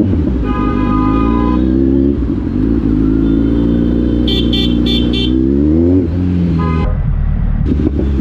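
Kawasaki Z900's inline-four engine running in traffic, its revs climbing steadily over a few seconds. Car horns sound over it: one honk about half a second in, and a quick string of short toots around four to five seconds in.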